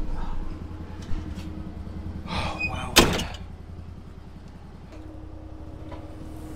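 Can-Am Defender HD10 side-by-side's engine running low and steady, with a short rattle and then a single loud thunk about three seconds in.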